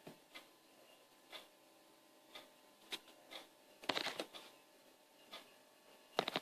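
A clock ticking steadily, about once a second. Around four seconds in comes a louder rattling clatter, and near the end two or three sharp clicks.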